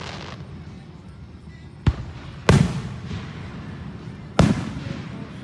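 Three aerial firework bursts, sharp bangs each trailing off in a rumble: one about two seconds in, a louder one half a second later, and a third near the end.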